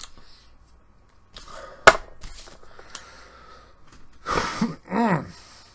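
A man's breathing in a pause, with one sharp click about two seconds in, then two short wordless vocal sounds near the end.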